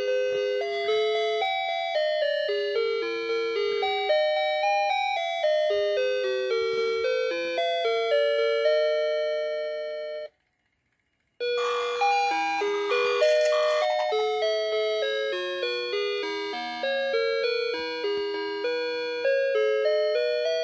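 Animated Santa figure playing a Christmas tune in electronic chime tones, one note after another. The tune cuts off for about a second midway, then starts up again.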